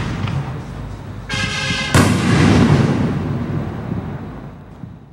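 Consumer 5-inch aerial firework shell: a rushing hiss about a second in, then the shell bursts with one loud boom about two seconds in, rumbling and echoing as it fades away.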